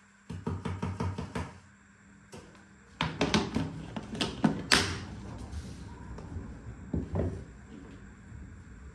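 Plastic food storage box being handled: its lid is pressed on and the clip latches snapped shut, a run of sharp plastic clicks and knocks, loudest about halfway through, with one more knock near the end.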